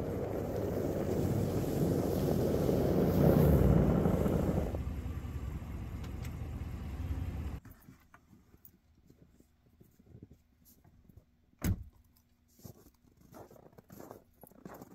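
Vehicle running or driving, a steady rumble that swells for a while and then cuts off abruptly about halfway through. Near quiet follows, with faint scattered clicks and one sharp knock.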